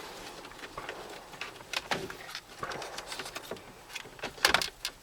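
Hands handling wiring and plastic dash trim: scattered rustling and small clicks, with a louder cluster of clicks and knocks near the end.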